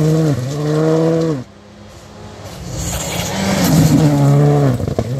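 Rally car engine at high revs on a gravel stage, cutting off suddenly about a second and a half in. Then a rally car's engine builds as it approaches and passes close at high revs, with a quick dip in pitch from a gear change near the end.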